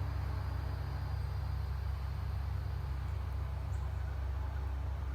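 Steady low rumble of wind buffeting the microphone, with no speech over it.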